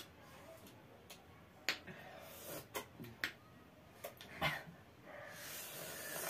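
Quiet mouth and breath sounds of people eating sour lime slices: a few scattered small clicks and smacks, with a longer breathy exhale near the end.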